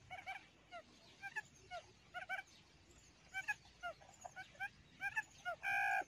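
Quail calling: a quick, irregular stream of short, high peeping notes, often several close together, with one louder held note near the end.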